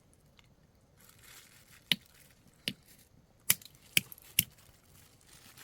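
Five sharp, separate clicks or knocks, irregularly spaced, between about two and four and a half seconds in.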